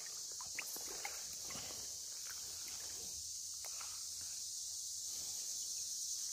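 Steady high-pitched insect chorus, with light splashes and drips of creek water in the first couple of seconds as a rock bass is released into the shallows.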